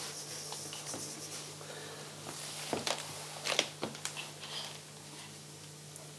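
Quiet room tone with a steady low hum, and a few light clicks and soft knocks about three to four seconds in: small handling noises as a toddler fiddles with a cap on his head.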